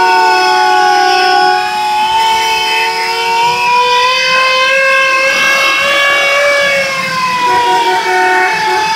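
Several siren tones wailing together, each pitch drifting slowly up and down and overlapping the others.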